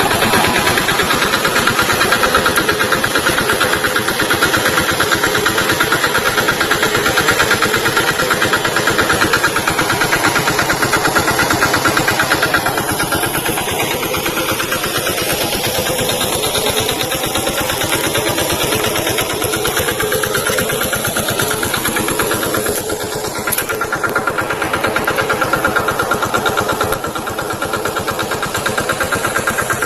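Small tractor's diesel engine running steadily, loud and rough, with its pitch shifting up and down now and then in the middle.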